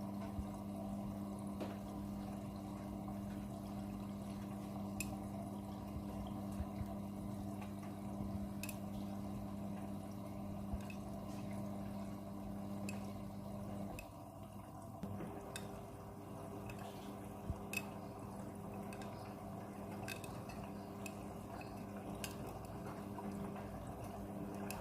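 Midea front-loading washing machine on a quick wash cycle, with water running and dripping inside it. A steady mechanical hum runs alongside and stops about halfway through. After a brief lull a different, higher steady hum takes over.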